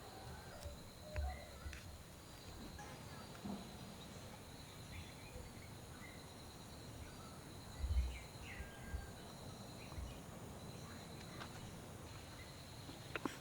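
Quiet rural ambience: scattered short bird chirps over a steady high insect drone, with two dull low thumps, about a second in and about eight seconds in.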